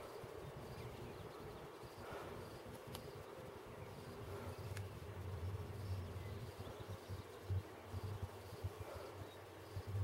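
Faint outdoor ambience of insects buzzing and chirping, with a soft high chirp repeating about every half second. A low rumble comes and goes in the second half.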